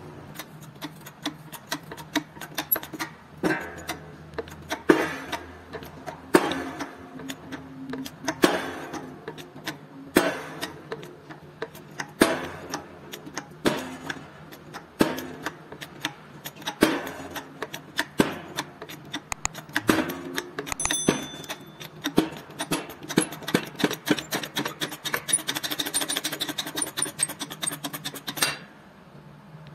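Repeated hammer blows on the seized steel inner tube of an old car jack, driving the jammed part out of the cast jack body. Heavier strikes come every second or two with lighter taps between, turning into quicker, ringing taps in the last few seconds before stopping about a second before the end.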